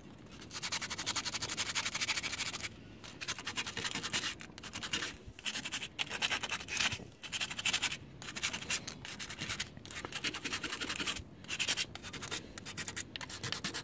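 Hand sanding a scooter's painted steel frame tube with a folded piece of 150-grit sandpaper. Quick back-and-forth scratching strokes come in runs with short pauses, rubbing a thin paint coat and surface rust down to bare metal.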